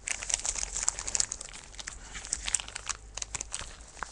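Plastic bag of salted pork crinkling and rustling as it is handled, with many quick, irregular crackles.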